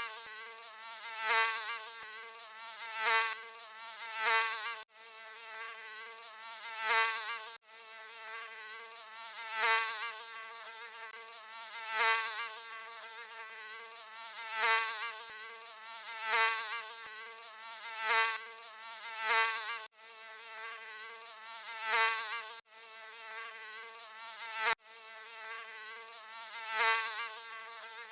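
Mosquito buzzing: a continuous wavering whine with many overtones, swelling louder about every second and a half, as in repeated fly-pasts. It cuts out for an instant a few times.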